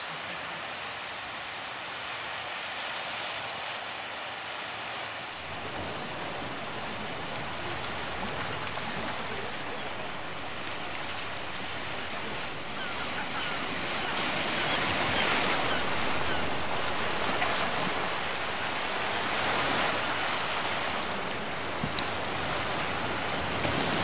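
Sea surf: waves washing in with a steady rushing sound that swells louder about halfway through.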